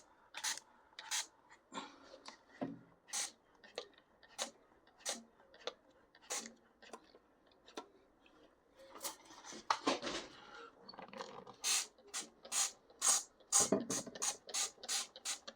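Dawn Powerwash trigger spray bottle being pumped over and over, each pull a short spritz of foaming dish spray. There are about twenty in all, roughly one or two a second, coming quicker toward the end.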